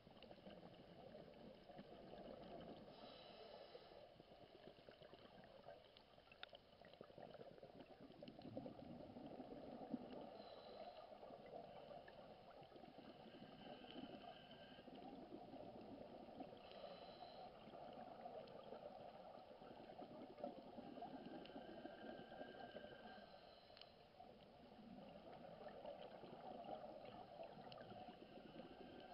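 Faint, muffled underwater sound of scuba diving: bubbling and gurgling of exhaled air from a diver's regulator, with brief higher whistling tones every few seconds.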